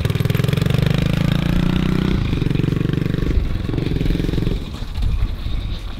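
A 110cc pit bike's single-cylinder four-stroke engine running steadily as the bike rides away. Its note changes about two seconds in, and the engine fades out about four and a half seconds in.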